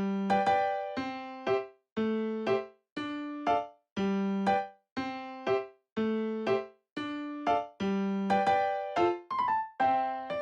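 Background music: a bright electric-piano melody with evenly struck notes, about two a second, in a repeating pattern.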